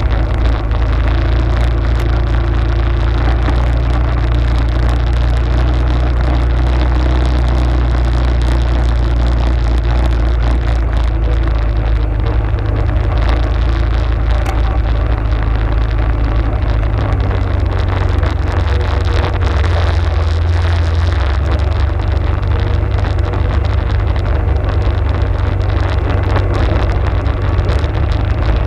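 Arctic Cat ATV running steadily while riding, with a heavy low rumble and an even hiss over it. The low rumble changes in pitch about two-thirds of the way through.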